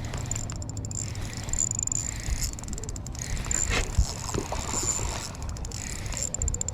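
Fishing reel cranked in short spells of rapid clicking while fighting a hooked bass, with one sharp knock about four seconds in.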